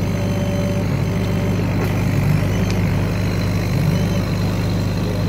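CO2 laser cutting machine at work cutting plywood: a steady low hum from its running extraction fan and air-assist pump, with faint brief whirring tones as the stepper motors move the laser head.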